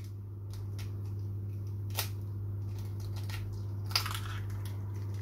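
An eggshell being cracked and broken open by hand over a dish: a sharp crack about two seconds in and a louder one about four seconds in, followed briefly by the shell crackling as it is pulled apart. A steady low hum runs underneath.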